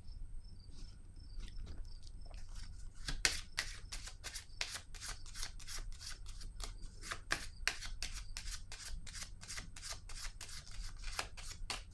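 A deck of oracle cards being shuffled by hand: a long run of quick, irregular card snaps and clicks, starting about a second in.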